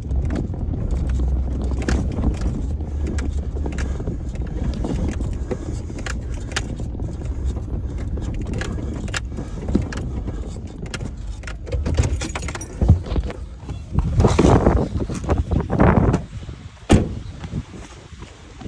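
An engine running with a steady low rumble, with scattered clinks and knocks. From about twelve seconds in, louder rough surges of rustling and handling noise.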